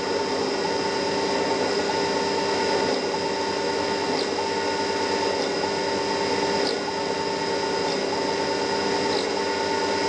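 Small CNC milling machine running while boring a port in a model diesel engine part: a steady spindle-motor hum with a higher whine that cuts in and out about once a second as the axes move.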